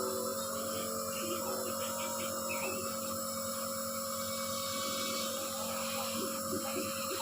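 Electric compressor nebulizer running during an inhalation treatment: a constant hum with a steady high whine.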